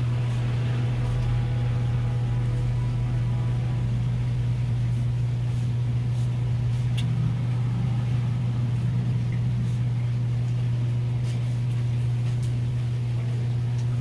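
Steady low mechanical hum, with a few faint knife taps on a cutting board as fish trimmings are sliced.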